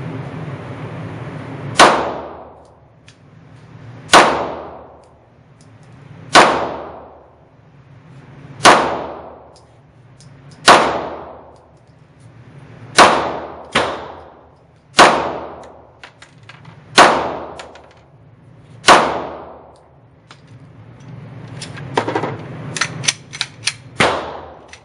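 Smith & Wesson M&P9 9mm pistol firing about ten slow, aimed shots, roughly two seconds apart, each with a long echoing decay. A few lighter metallic clanks follow near the end.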